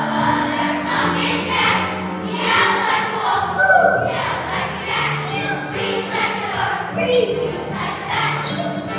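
Children's choir of third graders singing a song over a steady instrumental accompaniment.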